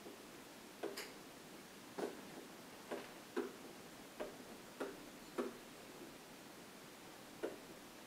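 Pen tip tapping and clicking against an interactive whiteboard while letters are written: about eight sharp, irregularly spaced clicks.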